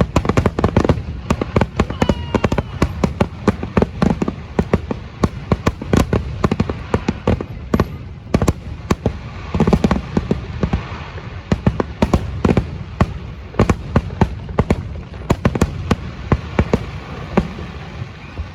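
Aerial fireworks exploding in a dense, rapid barrage of overlapping bangs and crackles over a continuous low rumble, the kind of run that closes a fireworks show. It eases slightly near the end.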